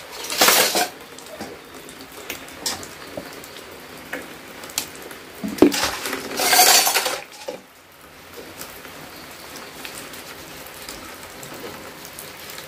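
Water pouring steadily from a pipe into a plastic basin during hand dishwashing, with clinks of crockery being handled and scrubbed. Two louder rushes of noise come about half a second in and again around six to seven seconds in.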